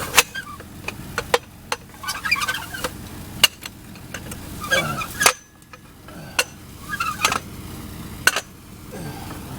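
Scattered sharp metallic clicks and knocks, about a dozen, from working a car jack into place under an SUV. Birds call in the background a few times.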